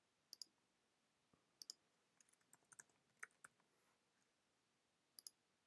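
Faint computer mouse clicks, each a quick double tick of press and release, heard three times, with a short run of keyboard key taps in the middle.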